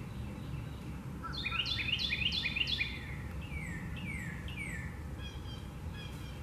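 A songbird singing: a quick run of repeated chirping phrases, followed by several slower whistles that slide down in pitch, over a steady low outdoor rumble.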